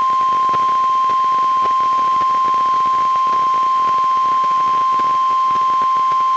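NOAA Weather Radio 1050 Hz warning alarm tone: one loud, steady, single-pitched beep held without a break. It signals that a warning broadcast, here a severe thunderstorm warning, is about to follow.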